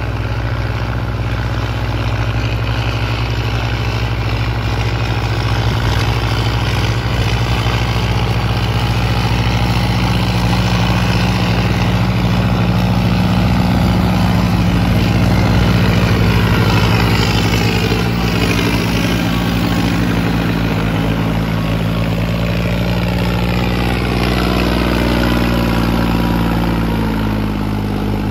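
Two Farmtrac tractors, a 6055 and a 60, with their diesel engines running hard under load while pulling 11-tine cultivators through the soil. The engine sound grows loudest around the middle as the tractors come close, and the engine pitch shifts in slow glides in the second half.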